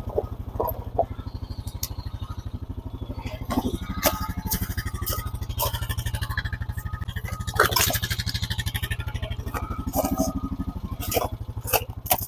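Four-wheeler (ATV) engine running steadily with an even, rapid low pulse.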